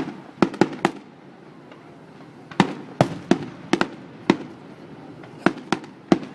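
Fireworks exploding in the sky: about a dozen sharp bangs at uneven intervals, in clusters of quick reports, each trailed by a short rumbling echo.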